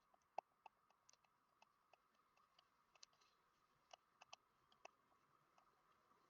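Faint, irregular light clicks and taps, about three a second, from a stylus on a drawing tablet as a circuit diagram is drawn, over a faint steady hiss.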